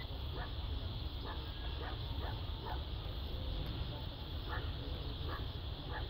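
A dog barking repeatedly, faint, with short separate barks at uneven intervals over a steady low rumble.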